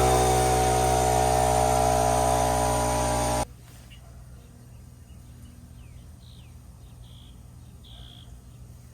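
Small portable tire-inflator compressor running steadily with a buzzing hum as it pumps air into a flat mower tire to seat the bead on the rim, then cutting off suddenly about three and a half seconds in.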